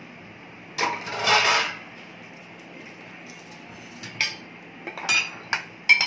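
Steel kitchenware clinking and scraping as whole spices are tipped off a steel plate into a steel bowl of raw chicken: a click and then a short rattling scrape about a second in, followed by a few light clinks against the bowl near the end as the chicken is mixed by hand.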